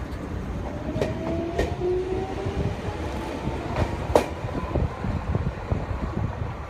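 Nagano Electric Railway 8500 series electric train pulling away from the platform and accelerating. Its motor whine rises steadily in pitch, over a rumble of wheels on rail. A few sharp clacks of wheels over rail joints come about one second and about four seconds in, the last the loudest.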